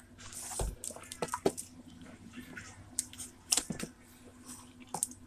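Hands working a plastic tub of slime and pulling the slime out: a scatter of small plastic clicks and soft squelches.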